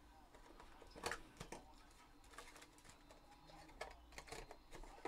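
Faint handling sounds of a trading-card hobby box and foil pack: scattered light clicks and rustles of cardboard and packaging, the loudest about a second in, over a low steady hum.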